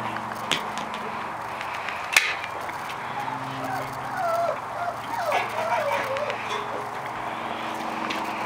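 Puppies whining and yipping in a run of wavering high calls through the middle, with two sharp clicks in the first couple of seconds.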